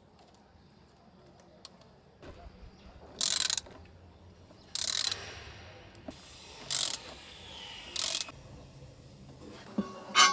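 Short bursts of ratcheting, about five, each under half a second and a second or two apart, from fastening the three wires onto the anchor windlass's terminals.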